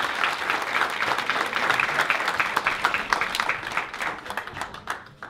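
Audience applauding, dense clapping that thins out and dies away near the end.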